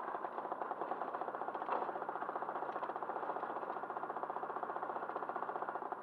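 Motorcycle engine running steadily under way, a fast, even pulsing of its exhaust heard from the rider's seat.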